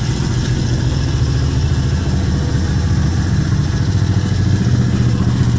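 Kayo YX140 pit bike's 140 cc single-cylinder four-stroke engine running at a fairly steady speed. The owner says it runs cleanly at idle but sneezes and its revs hunt when the throttle is held open, and re-set valve clearances have not cured it.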